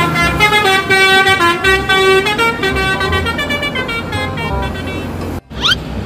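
Indonesian 'telolet' bus horn playing a quick multi-note tune. It cuts off suddenly about five and a half seconds in, followed by a brief rising tone.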